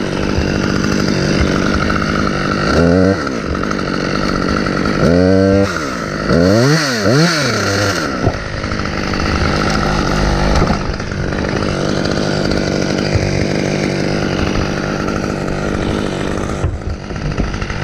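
Chainsaw running while it cuts through a tree branch. The engine is revved up and down sharply several times, about three seconds in and again between about five and eight seconds.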